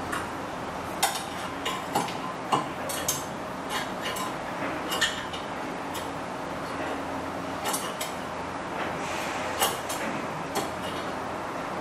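Sharp metal clinks and taps from hand tools and a small metal rod being handled and worked at a bench vise while a hinge pin is made: about a dozen irregular clicks, most in the first half, over a steady background hiss.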